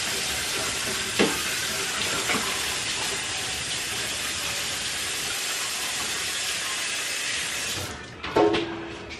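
Kitchen tap running into a sink while hands are washed: a steady rush of water that is shut off near the end, followed by a few light knocks.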